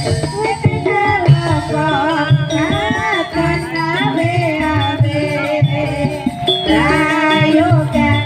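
Live jaranan senterewe dangdut music: drums keep a steady beat under a winding melody line that bends in pitch.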